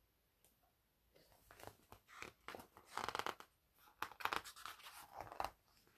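Paper pages of a picture book rustling as they are handled and turned, in a run of uneven bursts starting about a second in.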